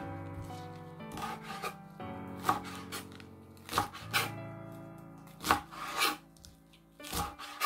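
Kitchen knife chopping lettuce leaves on a cutting board: about ten separate chops at uneven intervals, over background music.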